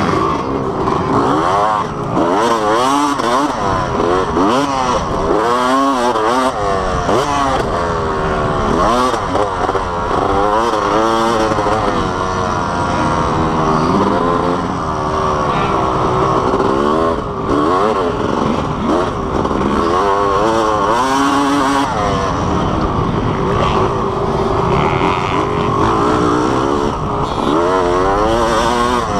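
Motocross dirt bike engine revving hard as it is ridden around a dirt track, its pitch climbing and dropping again and again with throttle and gear changes, heard close up from a camera on the rider.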